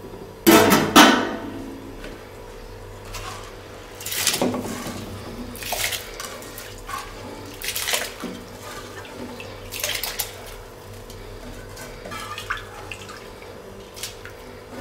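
Handfuls of soaked rice dropped into a pot of boiling spiced water, each landing with a splash. The splashes repeat every second or two, and the loudest comes about half a second in.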